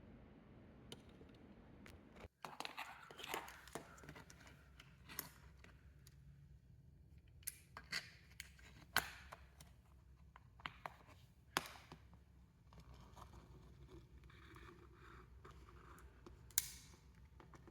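Faint, irregular light clicks and scrapes of small hard objects being handled, with a brief cut-out in the sound a little over two seconds in.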